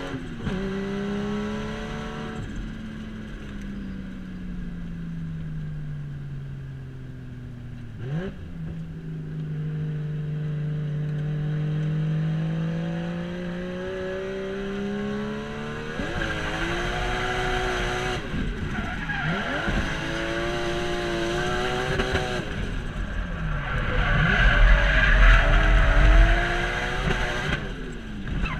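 Toyota JZX90 Chaser drift car's engine heard from inside the cabin. The revs fall, jump sharply about a third of the way in, then climb again. In the second half the engine runs high and wavering while the tyres squeal in a drift, loudest near the end.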